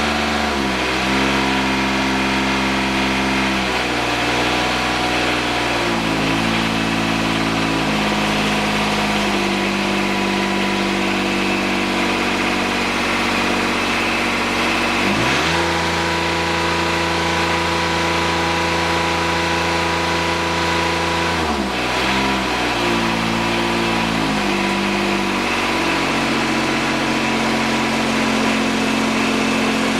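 John Deere 455 garden tractor's three-cylinder diesel engine running with freshly set valve lash. Its speed steps up and down with the throttle several times, climbs to a higher steady speed about halfway through, then drops back about six seconds later.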